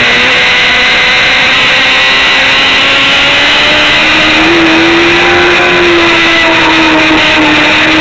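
Sport motorcycle's engine running hard at high revs, heard from an onboard camera under heavy wind rush; the engine note climbs a little about halfway through and then holds.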